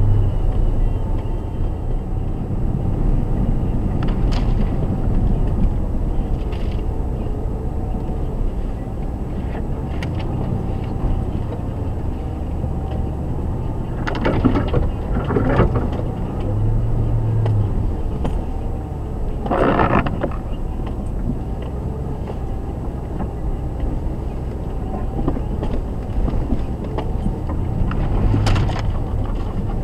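Jeep Grand Cherokee WJ crawling over a rocky trail, heard from inside the cabin: a steady low engine and drivetrain rumble. A few short knocks and scrapes cut in, the loudest a cluster about 14 to 16 seconds in, when branches brush against the vehicle, and another about 20 seconds in.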